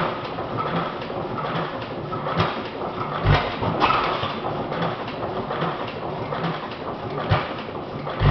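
Model hit-and-miss gas engine with hot-tube ignition turning on its flywheel: a steady quick clatter of valve gear and linkage, broken by a few irregular heavy thumps where the engine fires, only now and then as a hit-and-miss engine does. The strongest firing thump comes about three seconds in.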